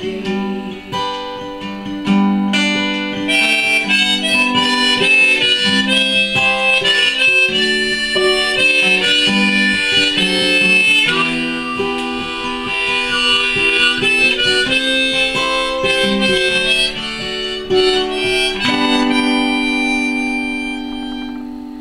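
Harmonica played from a neck rack over a strummed Takamine cutaway acoustic guitar, an instrumental passage with no singing. Near the end a last chord and harmonica note are held and fade out.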